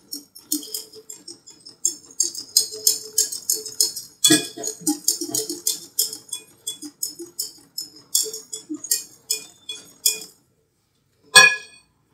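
Hand mixing in a bowl: a utensil clinks rapidly and unevenly against the bowl for about ten seconds, then stops, followed by one sharp knock near the end.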